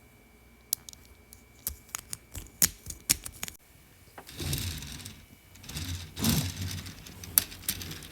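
Small plastic Lego Technic pieces clicking and rattling as they are handled: a run of separate sharp clicks, then two longer stretches of rustling and rummaging past the middle.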